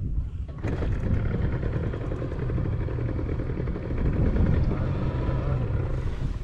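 Small boat outboard motor running steadily, its engine hum starting abruptly under a second in and cutting off at the end.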